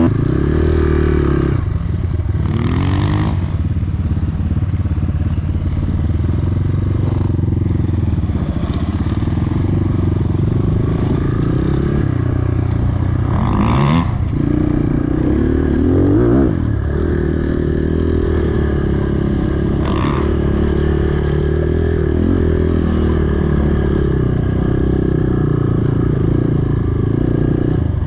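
A 250 cc enduro motorcycle engine running under way, mostly at a steady pitch, with brief rises in revs near the start, about three seconds in, and twice around the middle.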